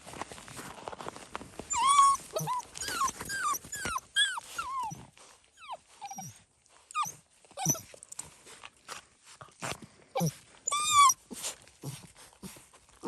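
Seven-week-old fox red Labrador puppies whining and yelping: a run of short, high cries, most sliding down in pitch, coming in clusters, with the loudest about two seconds in and near the end.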